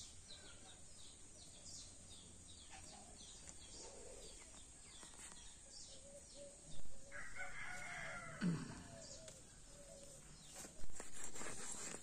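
A rooster crowing once, about seven seconds in, its call falling in pitch at the end, over the chirping of small birds. A short noisy burst follows about a second before the end.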